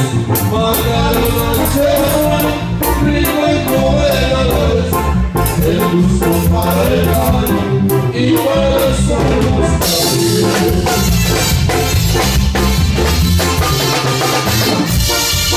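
Loud Latin dance music from a band: singing over drums and a steady beat, with busier, brighter high percussion from about ten seconds in.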